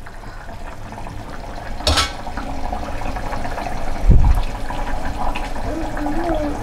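Mutton curry boiling hard in an open pressure-cooker pot, a steady bubbling and spluttering. A sharp knock comes about two seconds in, and a loud low thump about four seconds in.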